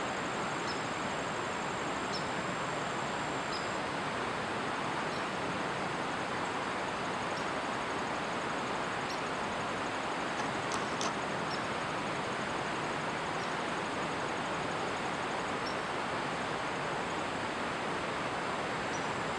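Steady rush of flowing water, even and unbroken, with faint short high chirps every second or two.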